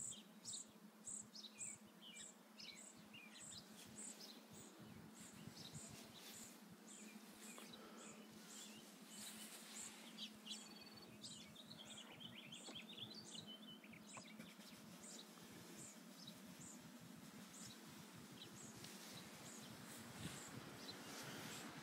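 Near silence with faint outdoor ambience: an insect chirping in a steady rhythm of about two or three high pulses a second, strongest in the first few seconds, and a bird's quick chirps in the middle.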